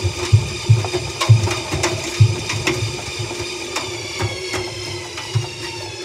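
Front-loading washing machine drum turned slowly by hand, with the load of clothes and an iPad tumbling inside it. There is a run of dull knocks, closest together in the first half, with sharp clicks and a steady whining tone underneath.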